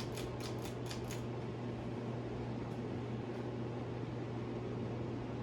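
Emerson 1895 series 42-inch ceiling fan running on high speed: a steady motor hum with even air noise. A quick run of about six light clicks in the first second or so, and two faint ticks near the middle.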